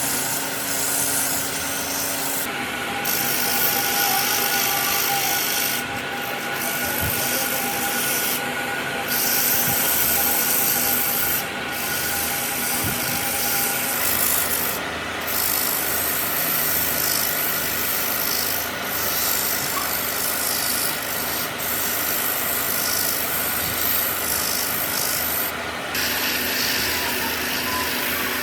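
Abrasive rubbing on wood, most likely sandpaper held against a turning wooden vase, making a steady hiss that breaks off briefly every few seconds, over the steady hum of the lathe motor.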